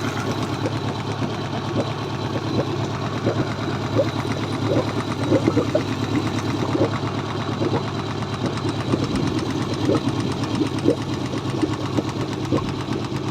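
Mercury 90 hp four-stroke carbureted outboard engine running, with a rapid, steady knocking from a valve in the cylinder head: a serious valve fault.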